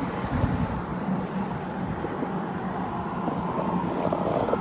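Steady noise of road traffic, cars passing on the highway across the bridge.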